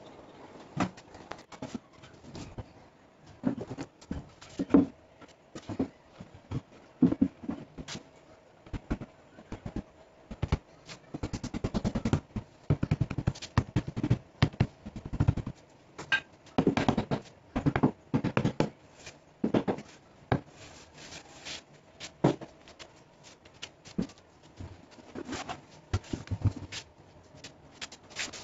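Knocks, taps and scraping from hands and a tool working on a plywood subwoofer enclosure, with runs of quick rubbing strokes in the middle.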